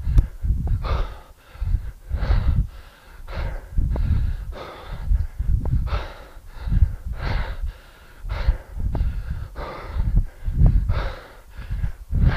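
A man breathing hard through repeated two-handed kettlebell swings, with a forceful breath out at each swing, about one a second.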